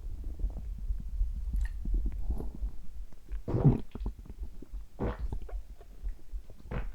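Human stomach gurgling in irregular swells over a steady low throb of the heartbeat. The loudest gurgle comes about halfway through, with shorter ones a little later and near the end.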